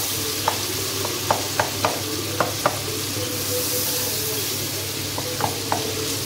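Chopped tomatoes sizzling in oil in a nonstick wok while a wooden spatula stirs them, with sharp taps of the spatula against the pan, several in the first three seconds and again near the end.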